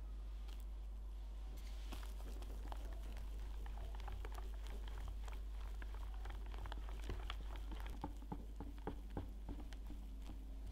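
Wire balloon whisk stirring whipped cream into a white chocolate mousse mixture in a glass bowl. It gives a run of quick, light clicks and ticks as the wires hit the glass and pass through the cream, with a few separate, stronger clicks near the end.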